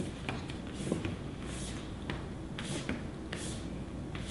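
Soft, scattered taps and shuffles on a hard floor from a Pomeranian puppy's paws and a man's hand on the floor during play.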